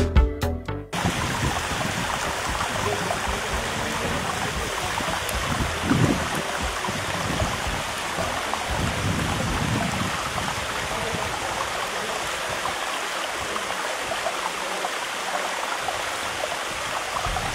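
Water running steadily down a stone water-chain cascade. Music cuts off about a second in.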